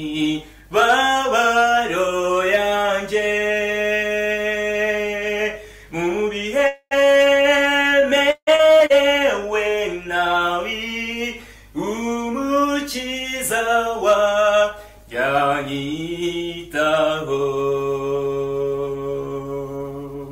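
A man singing the refrain of a Kinyarwanda hymn solo, in phrases of long held notes with short breaks for breath. The last note fades out near the end.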